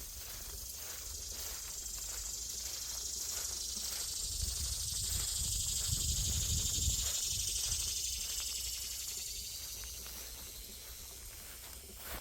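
A high insect buzz swells over several seconds, is loudest around the middle, then fades away, over footsteps on the trail at about two a second. A low rumble joins it briefly in the middle.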